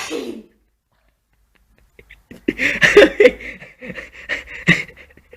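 The tail of a sneeze fading out, then a pause. From about two and a half seconds in comes a run of breathy, broken voice-like sounds, panting or laughter.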